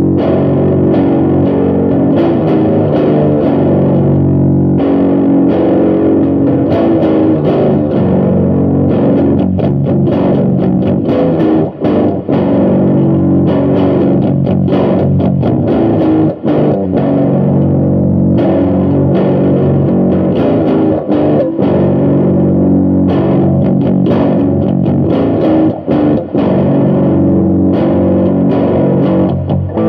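Eight-string electric guitar played through a distorted amp, a fusion-blues piece heard through a phone's microphone. It plays continuously, with a few short breaks.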